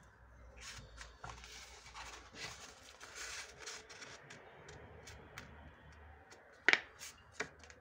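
A square sheet of origami paper rustling and sliding on a wooden tabletop as it is folded corner to corner into a triangle. A sharp click, the loudest sound, comes near the end, followed by a few lighter ticks.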